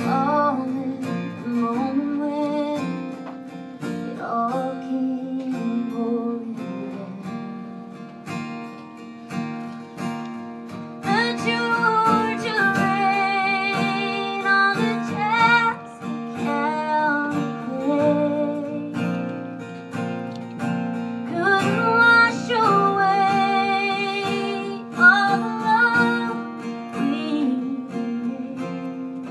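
A woman singing a country ballad over a strummed acoustic guitar, her voice in long phrases with wavering held notes, rising to fuller, louder lines about eleven seconds in and again about twenty-one seconds in.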